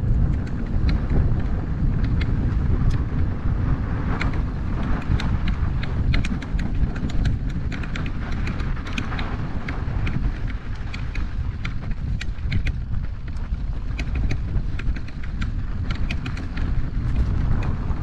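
Wind rumbling on the camera's microphone as a mountain bike rides a dirt and gravel trail, with many scattered sharp clicks and rattles from the tyres and bike going over the rough ground.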